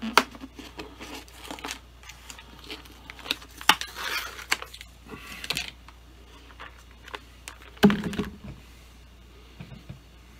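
A plastic snack jar of glazed pecans being worked open by hand: clicks, crinkling and scraping at the lid and seal, then nuts rattling as fingers dig in. One louder bump about eight seconds in.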